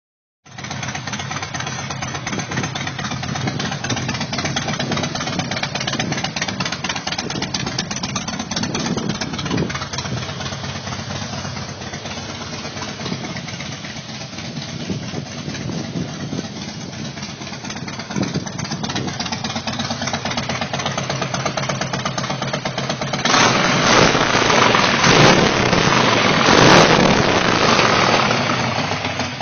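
Harley-Davidson motorcycle's V-twin engine idling steadily, getting louder for the last five seconds or so as it is heard close up.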